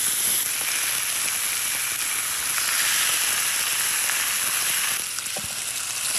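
Steak sizzling on a hot stone, a steady hiss.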